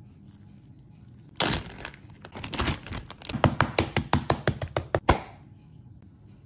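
Meat mallet pounding a chicken breast flat through a plastic bag on a cutting board: a brief rustle of plastic, then a rapid series of sharp smacks with a dull thud under each, lasting about three seconds.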